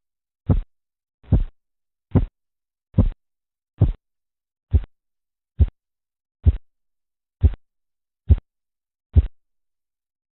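Korotkoff sounds through a stethoscope over an artery under a deflating blood-pressure cuff: evenly spaced pulse taps at about seventy a minute, each short and sharp, stopping abruptly about nine seconds in. The disappearance of the sounds is phase five, the point taken as the diastolic pressure.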